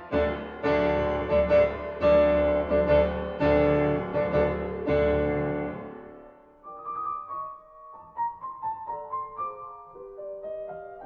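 Background piano music: loud full chords for about the first six seconds, then fading into a quieter, sparser line of single notes.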